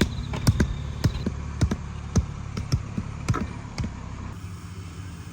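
A hammer tapping stone blocks into their setting bed, a sharp knock about twice a second, over a steady low engine hum. Both stop about four seconds in.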